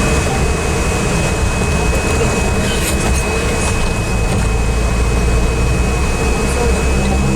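Car cabin noise while driving: steady engine and road rumble with the air conditioning running. The low rumble grows louder about four seconds in.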